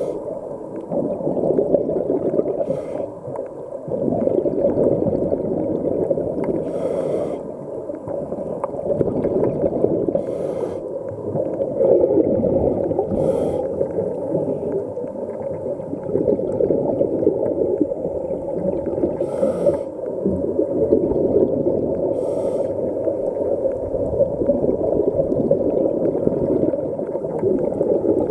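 Underwater sound of scuba breathing: a steady, muffled rumble of exhaled bubbles, with a short regulator hiss every three to four seconds.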